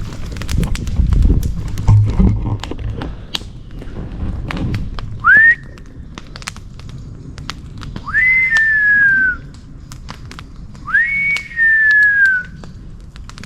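Three loud, clear whistled calls from an animal in the dark woods, a few seconds apart. Each rises sharply and then slides slowly down; the first is short. Campfire crackling and handling noises come before them.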